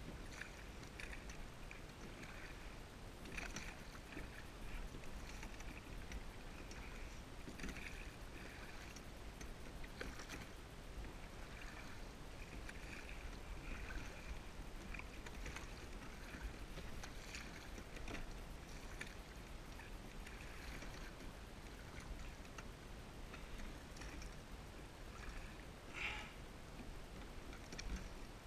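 Kayak paddle strokes in calm water: the blade dips and pulls through the water, giving soft splashes and drips every second or two, over a faint steady low rumble.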